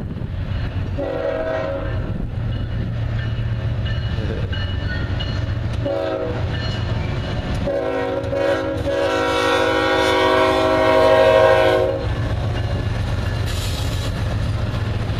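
Diesel freight locomotive sounding its multi-tone air horn for a grade crossing: a blast of about a second, a short one, then a long one of about four seconds, which is the loudest part. Under the horn runs the steady low rumble of the locomotive and the train rolling past.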